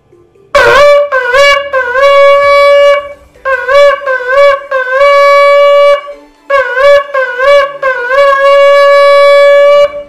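Shofar blown in three rounds, each a few short blasts that dip in pitch as they start, ending in a longer held note at the same pitch.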